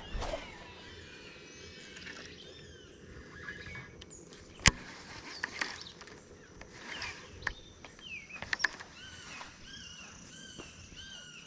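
A hawk calling over and over with short slurred screams, among other bird chirps, with a few sharp clicks; one loud click falls about halfway through.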